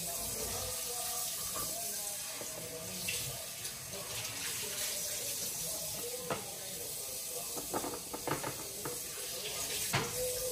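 A spatula scraping and knocking against a metal baking tray as cutlets are lifted off it, with a few sharp knocks in the second half, over a steady hiss.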